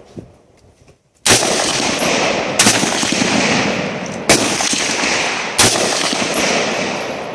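AR-15 semi-automatic rifle fired four times, single shots roughly a second and a half apart, each crack followed by a long echoing tail that runs into the next.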